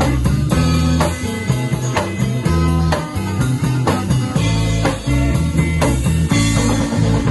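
Malay kugiran band playing live: electric guitars over bass guitar and a drum kit, with a steady beat.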